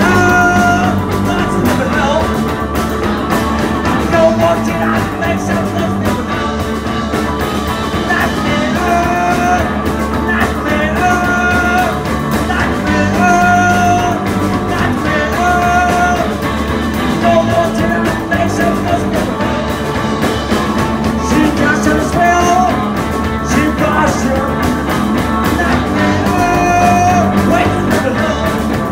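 Rock band playing live: a man singing loudly into a microphone over electric guitars, the music steady and loud, with a short held note recurring every two seconds or so.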